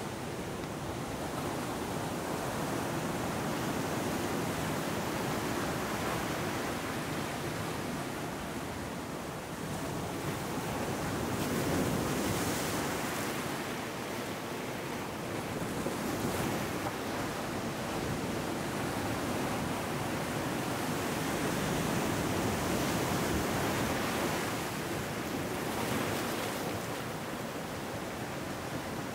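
Ocean surf breaking among shoreline rocks and washing up a sandy beach: a steady rush of water that swells every few seconds as each wave comes in, loudest about twelve seconds in.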